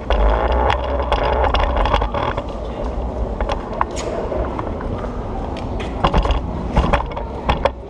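Oxelo 7 kick scooter's hard wheels rolling over a stone floor, a steady rumble broken by sharp clicks and knocks as the wheels cross floor joints and metal grates, with a cluster of knocks about six to seven and a half seconds in.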